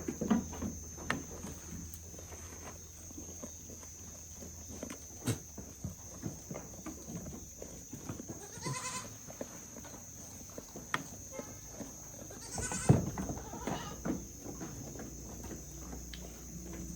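Goats bleating: two wavering calls, about nine and thirteen seconds in, amid scattered light knocks and shuffling.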